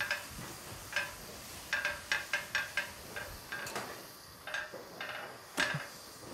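Light metallic clicks and taps of a flat griddle pan against the gas hob as kesra flatbread is turned over on it by hand, with a short run of quick clicks about two seconds in.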